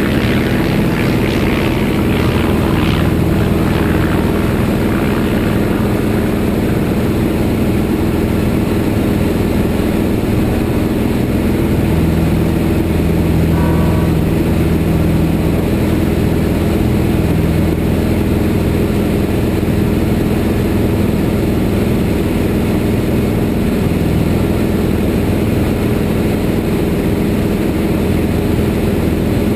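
A Van's RV-6A single-engine light airplane in flight, its piston engine and propeller droning steadily. A brief high tone sounds about halfway through.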